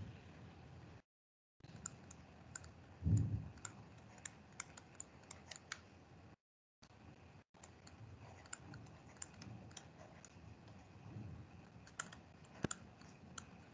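Faint, irregular light clicks and taps from writing on a computer drawing program, with a soft low thump about three seconds in. The call's audio cuts out completely twice for a moment.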